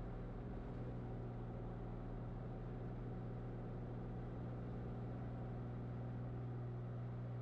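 Cessna 182's piston engine and propeller running at takeoff power during the takeoff roll, a steady drone.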